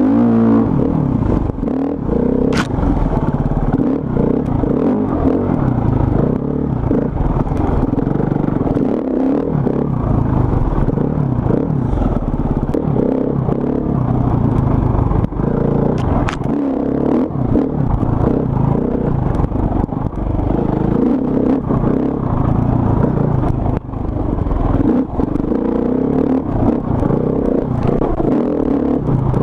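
KTM enduro motorcycle engine revving up and down with the throttle as the bike is ridden over rough dirt trail, with the bike clattering and rattling over the bumps.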